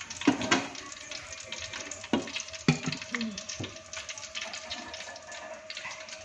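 Garlic and milk simmering in a frying pan: a steady bubbling crackle, with a few louder knocks in the first few seconds.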